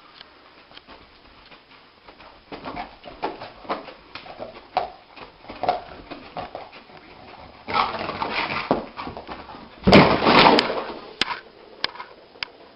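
A dog's vocal sounds among scattered clicks and knocks, with two louder noisy outbursts about eight and ten seconds in, the second the loudest, and a few sharp clicks near the end.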